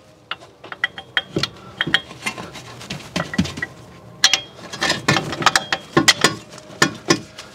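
Irregular metal clinks and knocks, some ringing briefly, as a steering knuckle and wheel hub assembly is worked into place on the car. The clinks come thicker about halfway through.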